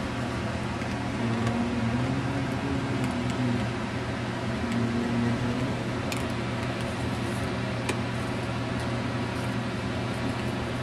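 A steady mechanical hum with a low drone, joined by a wavering higher tone in the first half. Two light clicks come in the second half.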